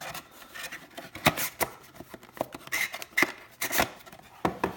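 Hands handling trading card packs and their cardboard box: rustling and scraping broken by a string of sharp taps and clicks.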